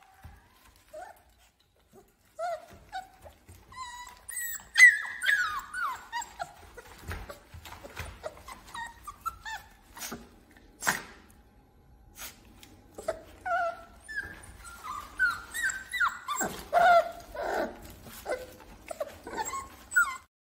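Young puppies whimpering and yipping in short cries that fall in pitch, several overlapping, sparse at first and busier from about four seconds in, with scattered sharp clicks.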